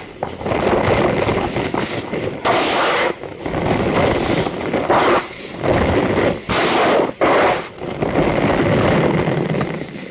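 Cornstarch powder being squeezed and crushed, making a series of crunchy squeaks. There are about six or seven squeezes, each roughly one to two seconds long, with short breaks between them.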